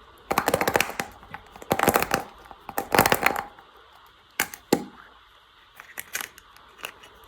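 Packaging being torn open and crinkled: three bursts of tearing and crackling in the first few seconds, followed by a handful of sharp clicks.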